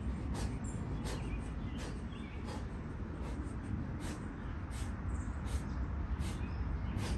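A man breathing hard and sharply in a steady rhythm while doing pull-ups, a quick hissy breath about every three-quarters of a second, over a constant low outdoor rumble.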